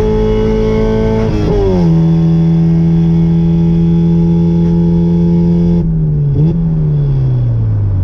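Car engine running through freshly swapped headers, holding steady revs. The pitch drops quickly about a second and a half in, as on an upshift, then holds. From about six seconds in the revs fall away slowly.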